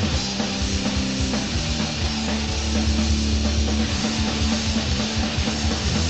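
Hard punk music from a band recording: distorted electric guitar, bass guitar and a drum kit playing steadily throughout.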